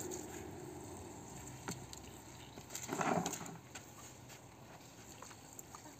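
Faint patter of water running from a garden hose onto wet carpet and concrete, with a few light knocks and a short louder noise about three seconds in.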